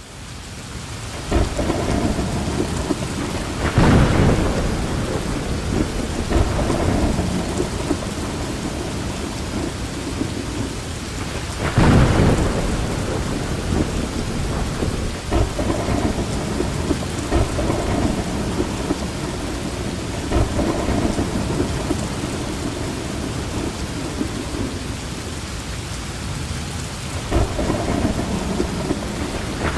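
Heavy rain pouring down steadily, with loud rumbling surges of thunder about 4 and 12 seconds in and again near the end.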